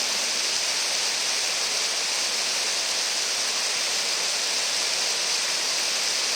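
Steady, unbroken rush of falling water from the third falls of Siffleur Falls, on the Siffleur River.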